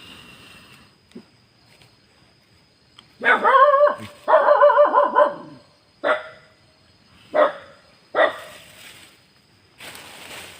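Dog barking: two long, drawn-out, wavering barks a few seconds in, then three short sharp barks spaced about a second apart.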